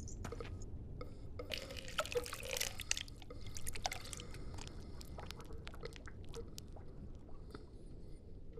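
Liquid poured from a soldier's canteen splashing onto the ground, heaviest in the first few seconds, then thinning to scattered drips. A steady low rumble runs underneath.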